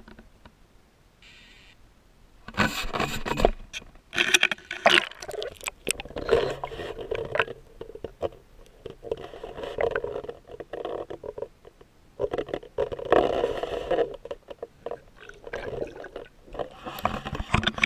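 Water sloshing and rushing against a GoPro's waterproof housing as it is plunged and moved underwater, in irregular bursts of splashing, scraping noise that start about two and a half seconds in.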